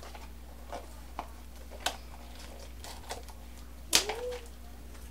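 Scattered sharp clicks and crinkles of plastic shrink-wrap being torn at and a small cardboard blind box being handled, about five in all, the loudest snap about four seconds in.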